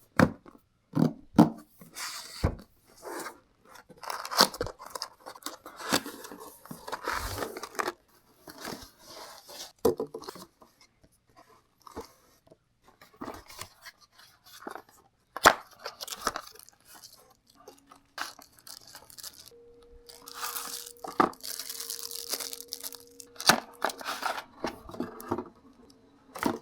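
Packaging being opened by hand in a keyboard unboxing: irregular tearing, crinkling and rustling of wrapping with scattered knocks and clicks from the box and its contents. A faint steady hum joins in for the last third.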